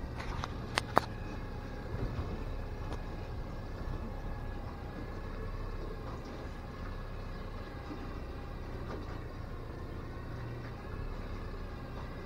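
Boat outboard motor running steadily at low speed while trolling, a constant hum with water wash. Two sharp clicks about a second in.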